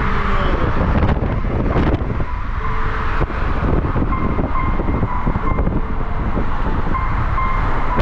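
Steady road and engine noise of a moving car, with faint short high tones coming and going over it.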